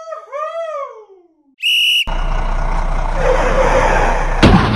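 A plastic toy vehicle splashing into a river about four and a half seconds in, the loudest sound, after flying off a wooden ramp; under it steady outdoor noise with a low hum. Before that, a high whistle-like tone holds and then glides up and down, and a short high beep sounds.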